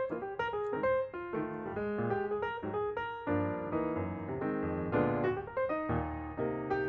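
Background piano music: a steady run of single notes over chords and a bass line.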